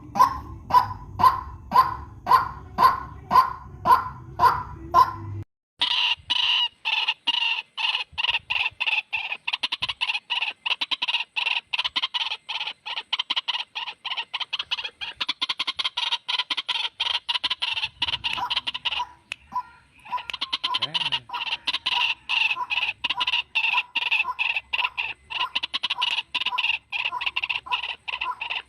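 White-breasted waterhen calling over and over. For the first five seconds the calls come evenly, about two a second. Then the recording cuts to a faster, denser run of calls, which breaks off briefly about two-thirds of the way through.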